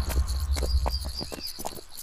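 Forest ambience of insects chirring high and steady, over scattered footsteps and hoof clops on a dirt path.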